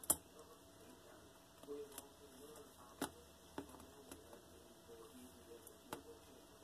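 Faint scuffling and rustling of two one-month-old Highlander kittens wrestling on a plush cat bed, with a few sharp clicks, the loudest right at the start.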